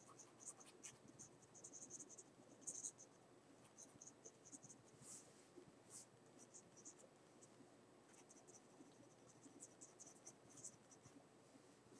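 Faint scratching of a mechanical pencil's lead on paper in many short, light strokes, with a pause of about two seconds a little past the middle.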